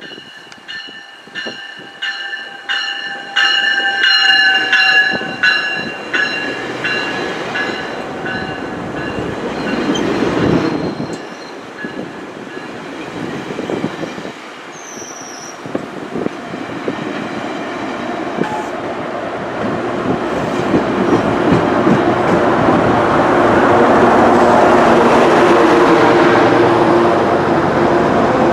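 A level-crossing bell rings about twice a second for the first several seconds. Then a GO Transit push-pull commuter train of bilevel coaches passes on the rails, with rumble and clatter that build. It is loudest near the end as the trailing MPI MP54AC diesel locomotive, GO 668, pushes by.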